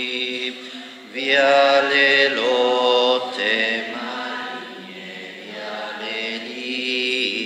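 Voices singing a hymn together in church, in held notes that rise and fall.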